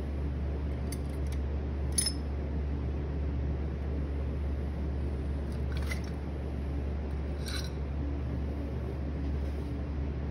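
Electric pottery wheel running with a steady low hum, with a few brief clicks and scrapes of hands and a tool on the wet clay vase.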